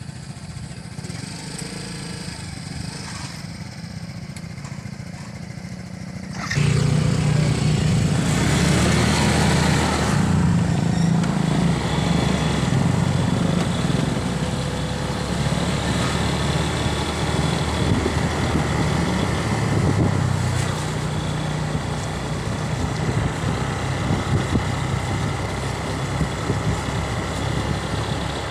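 Motorcycle engine idling, then about six and a half seconds in pulling away and running at riding speed, its pitch shifting, with wind and road noise over the microphone of the moving bike.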